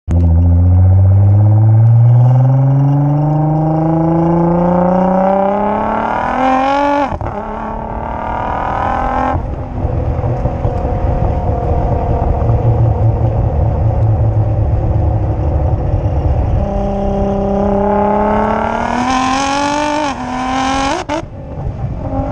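Nissan GT-R engine through a 4-inch valved aftermarket exhaust, accelerating hard with the pitch climbing steadily and dropping sharply at an upshift about seven seconds in. It then settles into a steady rumble before a second hard pull near the end, broken by quick shifts.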